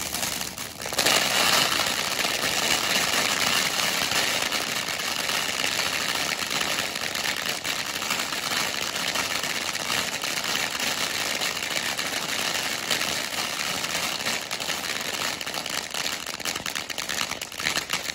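Toon Town 500 g fountain firework by Smoking Alien spraying sparks with a loud, steady rushing hiss. The hiss dips briefly about a second in, then picks back up. Dense crackling builds near the end as the fountain moves into its finale.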